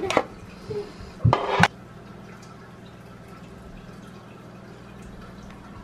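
A few sharp knocks from handling around a small fish tank in the first couple of seconds, then faint water sounds over a steady low hum.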